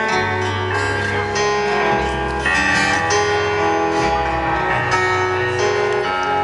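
Instrumental music from the band's stage sound system: plucked, guitar-like notes over sustained chords and a bass line, the harmony changing every second or two.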